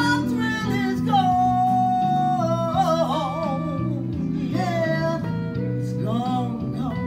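A woman singing a blues song into a microphone, accompanied by an electric guitar. She holds a long note about a second in that turns into a wide vibrato, while the guitar plays low notes underneath.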